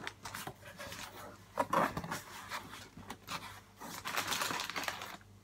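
Cardboard shipping box being opened and rummaged through: irregular scraping and rustling of the flaps and the contents being handled.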